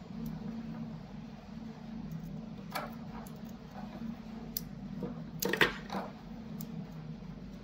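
A few small plastic clicks from a waterproof wire connector being handled while a wire is fed into it, loudest in a short cluster about five and a half seconds in, over a steady low hum.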